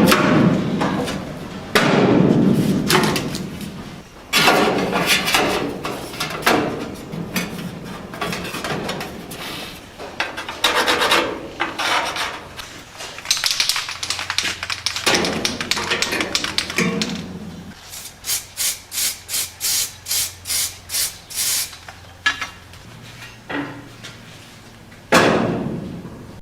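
Hand tools working sheet-steel repair panels for a car's wheel-arch tub: irregular knocks and scraping, with a run of about ten even rasping strokes a little past the middle.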